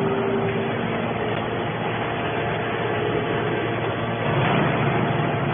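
Hydraulic scrap metal baler running, a steady mechanical din; a steady tone in it fades out about half a second in.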